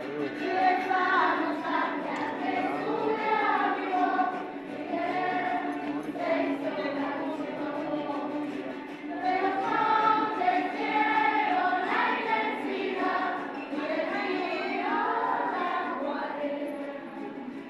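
Children's choir singing, many voices together.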